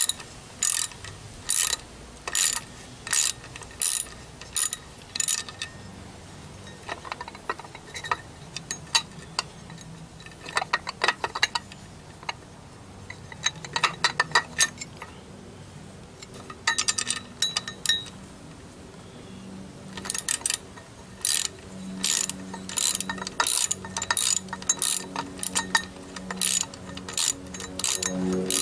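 Socket ratchet clicking in repeated strokes with short pauses as a bolt above the propeller on a Mercury 50 hp outboard's lower unit is backed out. A low steady hum joins in during the latter part.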